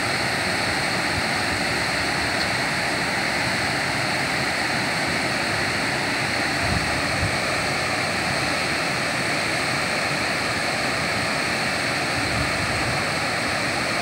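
Steady rush of a large waterfall, water pouring down a steep rock face, unbroken throughout, with a faint steady high whine over it.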